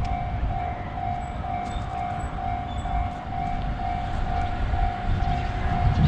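Japanese railroad crossing warning bell ringing as an even, repeating electronic ding, about two and a half a second, over the low rumble of a train on the line.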